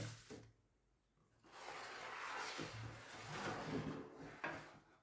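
Bowls being moved about on a wooden table: a knock at the start, then a couple of seconds of scraping as a bowl slides across the tabletop, and a sharp knock as a plastic bowl is set down near the end.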